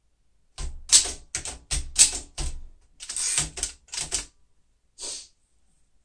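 1940 Royal Signet manual typewriter being typed on: about a dozen sharp, irregular keystrokes of the typebars striking the platen over some four seconds, then one more stroke about five seconds in.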